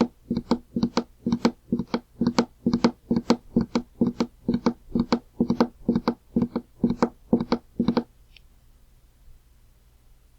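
Galloping-horse sound effect: hoofbeat knocks in quick groups of two or three, about two groups a second, in a steady gallop rhythm that stops abruptly about eight seconds in, leaving only a faint hum.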